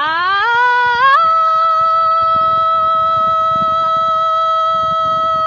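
A single voice singing: it slides up by more than an octave in the first second, then holds one long, steady high note.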